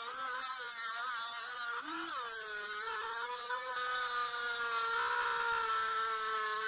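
Dremel rotary tool with a cutoff wheel grinding a keyway into a metal gear shaft: a steady high-pitched whine over a grinding hiss. The pitch wavers and dips briefly about two seconds in, then holds steady.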